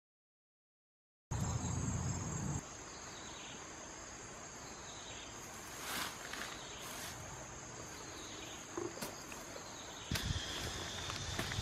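After about a second of silence, a steady high-pitched insect trill runs through the grassy field until near the end. Short scraping sounds of a hand digging in dry soil come through now and then.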